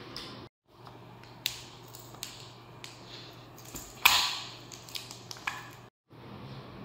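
Small objects being handled: scattered taps and clicks, with one louder crinkling clatter about four seconds in that fades over half a second, as a baby fiddles with a shiny red-and-gold toy beside a plastic remote control. A low steady room hum lies underneath.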